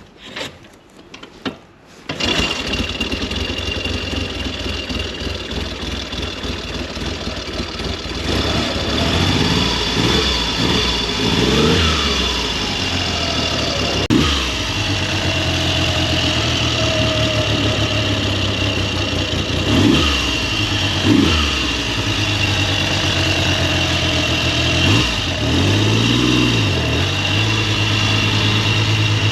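1969 Triumph Trident's 740 cc three-cylinder engine starting about two seconds in, then idling steadily with a series of short throttle blips that rise and fall in pitch. The engine has just had its head gasket and valves done and been tuned, and idles on its own.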